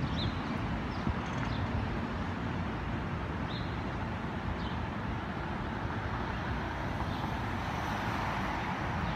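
Steady outdoor street noise with a low traffic rumble, and a few short, high bird chirps in the first half.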